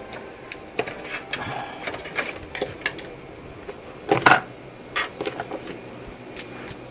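Irregular clicks and rattles of parts being handled on a PC case, with a louder clatter about four seconds in.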